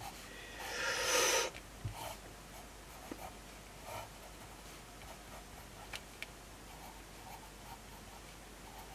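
Pencil scratching on paper as a circuit schematic is drawn by hand: faint short strokes and a few light ticks. One louder rush of breath comes about a second in.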